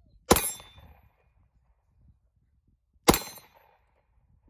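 Two shots from a 9 mm pistol, about three seconds apart, each a sharp crack followed by a short trailing echo.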